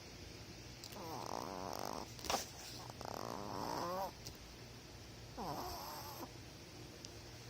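A sleeping pet snoring: three pitched, buzzy snores about two seconds apart, with one brief sharp sound a little past two seconds in.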